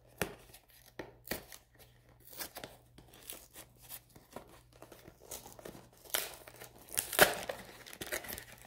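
A small cardboard trading-card box being pried and torn open by hand: scattered crinkles, scrapes and tearing of paperboard, loudest about six and seven seconds in.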